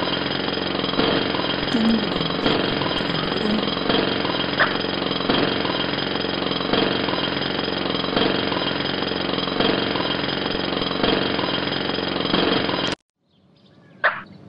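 Pneumatic jackhammer hammering continuously, then cutting off abruptly about 13 seconds in. About a second later comes one short, sharp sound.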